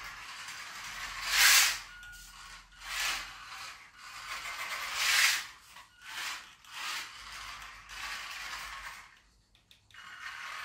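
Small scavenged brushed electric motor of a radio-controlled toy car whirring in a series of short bursts of throttle, loudest about a second and a half in and again about halfway, with the hard plastic wheels rolling on a laminate floor.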